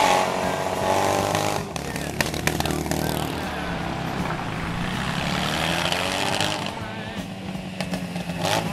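1979 Yamaha XS650's air-cooled parallel-twin engine running. Its revs fall off over the first second or so, then it runs fairly steadily.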